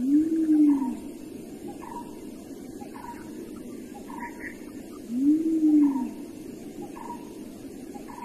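A wild animal calls twice, about five seconds apart. Each call is a single loud hoot, under a second long, that rises and then falls in pitch. Under it, short chirps repeat about once a second.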